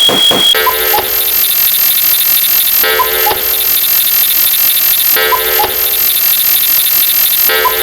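Cuckoo clock sound effect: a two-note falling 'cuck-oo' call repeating about every two and a quarter seconds, four times, over a steady high hiss. A phone ringing effect cuts off about half a second in.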